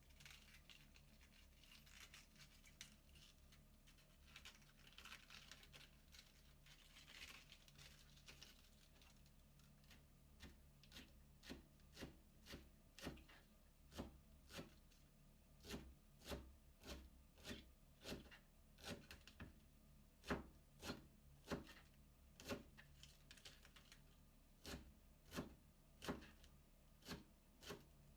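Cabbage being shredded with a kitchen knife on a cutting board: crisp, even chops about two a second. Before the chopping starts, about the first third is soft rustling with a few light ticks.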